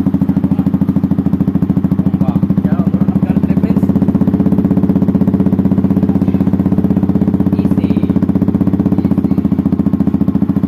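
Yamaha R15M's 155 cc single-cylinder engine idling through an SC Project slip-on exhaust, a steady, even pulsing with no revving.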